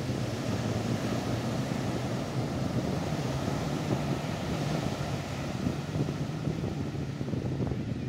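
Small Atlantic waves breaking close in and washing up a sand beach, a continuous rough surf wash, with wind buffeting the microphone and a steady low hum underneath.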